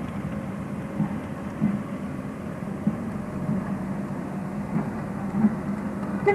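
Car engine and road noise heard from inside a moving car, a steady low drone with a few irregular thumps.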